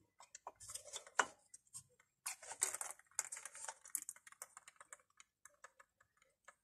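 Irregular light clicks, taps and rustles of brake caliper parts and tools being handled by hand, with a few brief hissy rustles about two and a half to three and a half seconds in.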